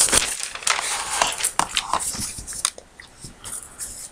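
A sheet of lined notebook paper rustling and crinkling as it is handled and moved about: a quick run of irregular crackles that thins out after about three seconds.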